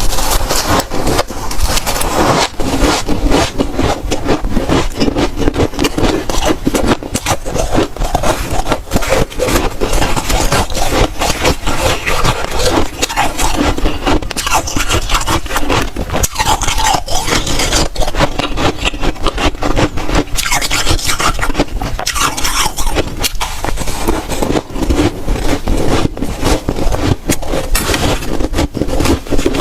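Dry, powdery freezer frost being bitten and chewed: a dense, continuous run of crisp crunches.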